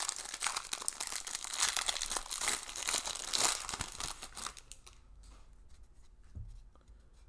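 Wrapper of a baseball card pack being torn open and crinkled by hand. The crackling stops about four and a half seconds in, leaving a few faint clicks.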